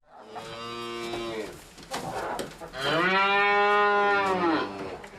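A cow mooing twice: a shorter call, then a longer, louder one about three seconds in.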